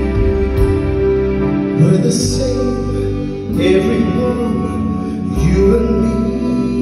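Male vocalist singing long held notes into a microphone over sustained live band accompaniment.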